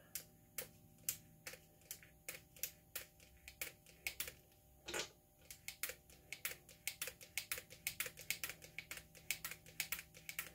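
Lever-action grease gun being pumped by hand: a run of sharp clicks from the lever and its linkage, about two a second at first, quickening to about four or five a second past the middle, with one louder knock about halfway through. The newly loaded gun is being worked to prime it until grease comes out.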